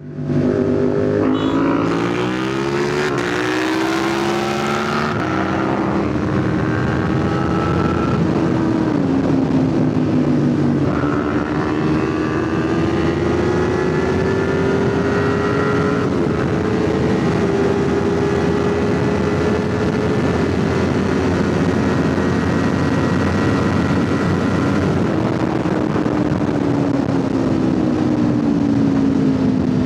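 Kawasaki Ninja 500 parallel-twin engine heard from the rider's seat, pulling up through the gears in the first few seconds, its pitch climbing and stepping down at each upshift, then holding a steady cruise.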